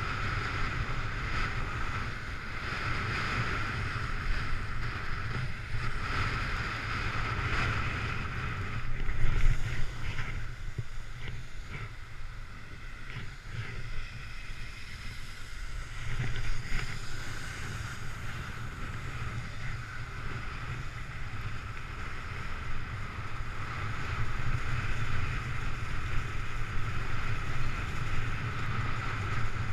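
Wind rushing over the camera microphone, with a snowboard scraping and sliding over snow through a run. There is a louder burst about nine seconds in.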